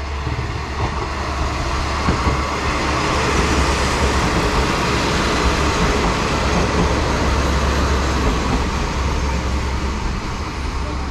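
JR Kyushu KiHa 47 diesel railcars pulling into the station and running past, engine rumble and wheels on the rails building to a peak midway as the cars go by, then easing as the train slows to stop.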